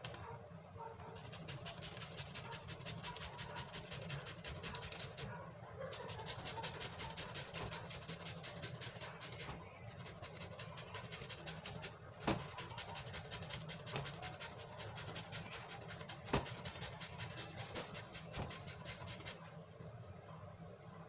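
Green papaya rasped quickly up and down a handheld metal grater over an aluminium pot: runs of scratchy shredding strokes, several a second, broken by a few short pauses. Twice in the second half a sharp knock stands out above the grating.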